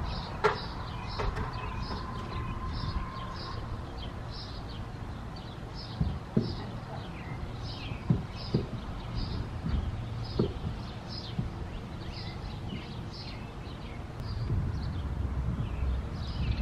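A small bird chirping over and over, two or three short falling chirps a second, over a steady low rumble of wind on the microphone. A few sharp knocks come and go as a wooden roof bracket is handled against the eave.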